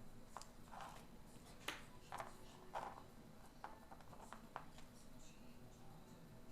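Faint handling noises of a small battery and its connector: a string of short clicks and taps, about eight of them spread over the first four and a half seconds, over a low steady room hum.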